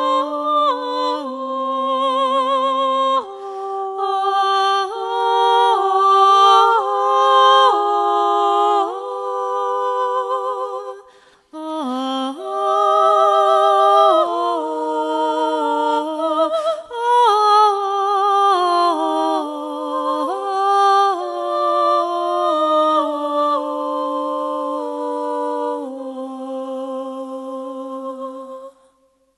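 Unaccompanied vocal music: several voices singing in harmony, with vibrato on the held notes. It breaks off briefly about eleven seconds in and ends on a long held chord that stops just before the end.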